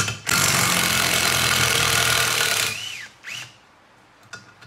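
Cordless impact gun hammering for about two and a half seconds on the forcing screw of a bolt-down valve spring compressor on an LS cylinder head, backing it off to release the compressed valve spring. Near the end come two short bursts of the motor whining up and down without hammering.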